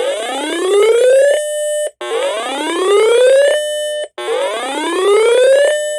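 Repeating electronic whoop alert tone of an emergency alert broadcast. Each whoop sweeps upward in pitch for about a second and a half, holds briefly, then cuts off, three times at about two-second intervals.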